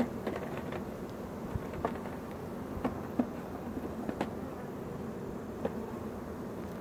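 Honeybees buzzing steadily around an open hive, with scattered light knocks and clicks as wooden frames are set into the hive box.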